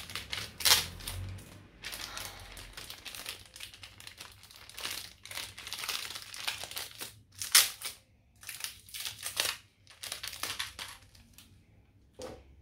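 Plastic packaging crinkling and rustling as hands work through small plastic figure parts, in irregular bursts, with one sharper crackle about seven and a half seconds in.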